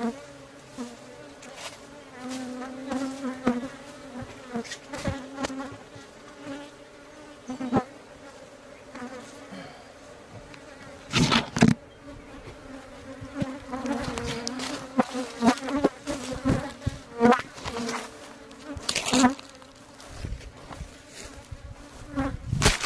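Honeybees buzzing close to the microphone, the pitch wavering as they fly around. This is defensive, aggressive buzzing. Sharp knocks come every few seconds, the loudest about halfway through and near the end.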